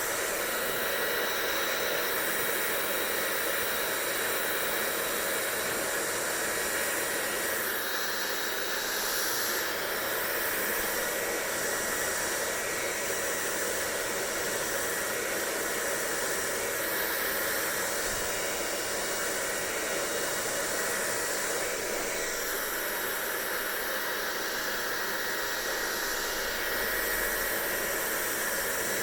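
Hair dryer running steadily: an even blowing hiss with a faint high motor whine, its brightest top end swelling and fading now and then.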